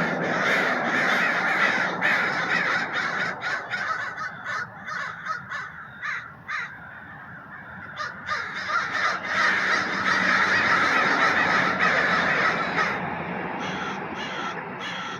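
A flock of American crows cawing, many calls overlapping into a dense chorus. It is loudest in the first few seconds and again from about eight to thirteen seconds in, with a thinner stretch between.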